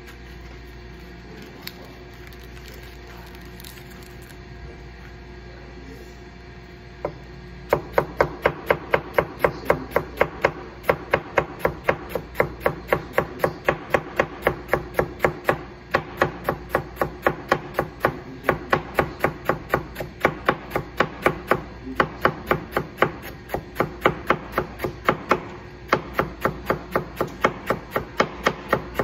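Tojiro Pro nakiri knife chopping tightly rolled leafy greens into fine shreds on a plastic cutting board: fast, even knocks of the blade on the board, about three a second, starting about eight seconds in with a couple of brief pauses. Before the chopping only a low steady hum is heard.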